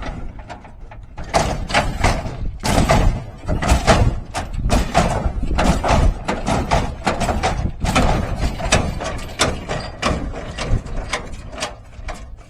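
A hydraulic lowrider hopping: repeated irregular bangs, clanks and rattles as the car bounces up and slams back down on its suspension.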